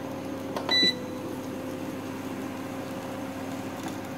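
A portable induction cooktop beeps once, briefly, about a second in, over its own steady low hum.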